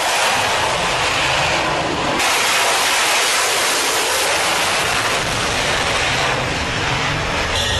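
F/A-18 fighter's twin jet engines running at full power for a carrier catapult launch, heard as a loud, steady rush that grows brighter about two seconds in.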